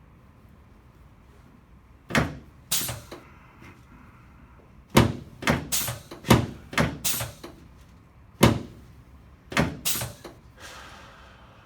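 About ten sharp clacks from a chiropractic drop table, coming in groups, as its drop sections give way under thrusts during the adjustments.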